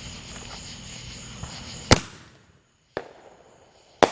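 Two sharp firework bangs about two seconds apart, with a smaller crack between them, over the steady chirping of crickets.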